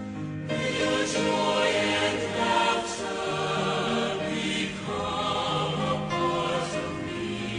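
A choir singing in harmony, several voice parts holding long notes together and moving to new chords every second or two.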